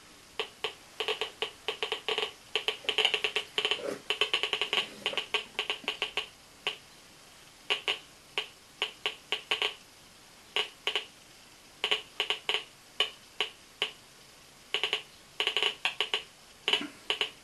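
Radiation counter clicking at an irregular, random rate, in bunches and gaps, as its detector probe counts radioactive dust on an air filter. The count rate is raised well above the background of about 3 counts per second.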